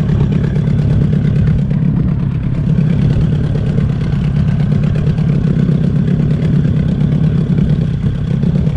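Boat's outboard motor running steadily at low trolling speed, a constant low hum.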